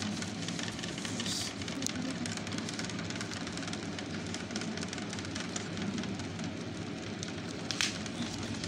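Light rustling and tapping of a paper sewing pattern as hands slide it into place and smooth it flat on folded fabric, over a steady background hiss and hum. Two brief louder rustles, about a second and a half in and near the end.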